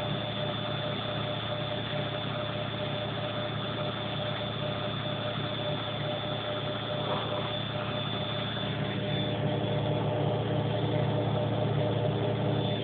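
Front-loading washing machine on its final spin, the drum turning at high speed: a steady drone with a thin, steady whine over it, getting a little louder over the last few seconds.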